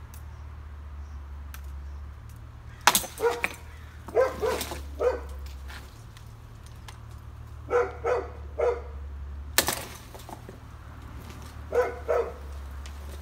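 A dog barking in short runs of two to four barks, three times over. Two sharp knocks, one about three seconds in and one near ten seconds, are the loudest sounds.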